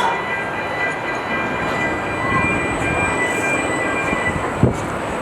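A train rolling on steel rails: a steady rumble with a faint high whine that fades out, then a single sharp knock near the end.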